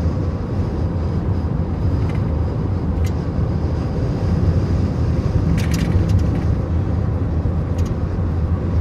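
Steady low rumble of road and engine noise inside a moving car, with a few faint brief ticks.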